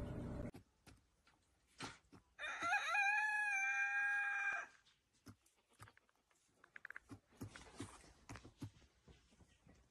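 A rooster crows once, about two and a half seconds in, a single held call lasting about two seconds. Afterwards, faint short taps of a hen pecking at a carved pumpkin.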